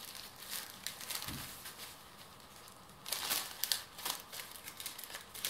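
Thin paper sandwich bags rustling and crinkling as they are peeled apart from the pack and laid on a stack, in irregular short rustles with the loudest ones about three to four seconds in.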